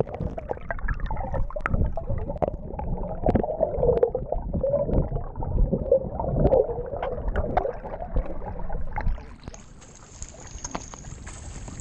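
Muffled underwater sound from a camera held below the surface: water gurgling and rushing past, with scattered knocks. About nine seconds in the camera breaks the surface and open-air wind and water hiss takes over at a lower level.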